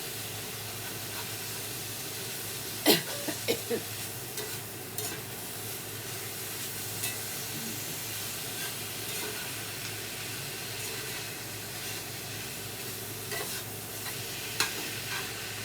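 Ground beef, jalapeños and artichoke hearts sizzling steadily in a frying pan while being stirred, with a few sharp knocks of the utensil against the pan, the loudest about three seconds in.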